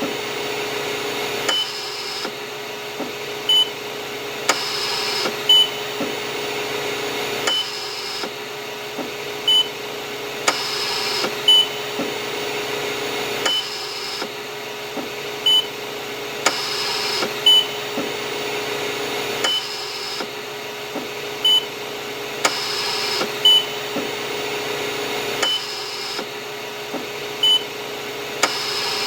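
Hospital mechanical ventilator running with a steady hum and a hiss that swells and fades in a breath cycle about every six seconds. A short, high beep sounds about every two seconds.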